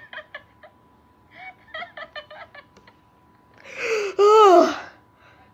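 A boy laughing: short giggles early on, then a loud burst of laughter about four seconds in that falls in pitch.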